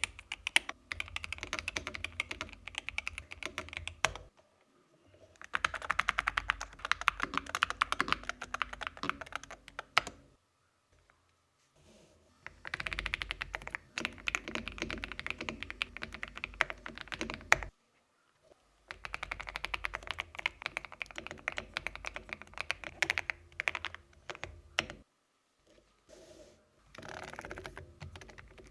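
Fast typing on a mechanical keyboard, rapid key clicks and clacks, in five stretches of several seconds each separated by short pauses.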